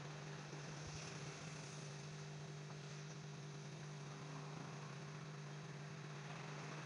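Faint, steady electrical mains hum from a battery charger charging a lead-acid car battery at about 6 amps.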